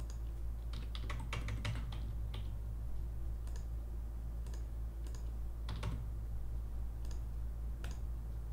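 Typing on a computer keyboard: a quick burst of keystrokes about a second in, then single clicks spaced out over the next few seconds.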